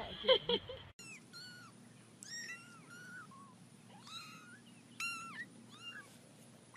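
A cat, likely a kitten, mewing in a string of short, high-pitched calls.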